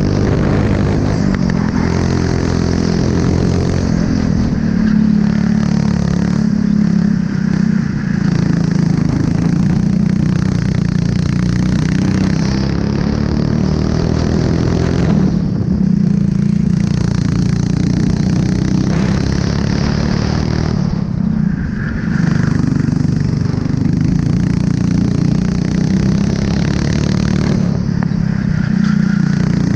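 Honda four-stroke kart engine running hard on track, recorded on board. Three times, about halfway, about two-thirds in and near the end, the engine note drops briefly and then picks back up.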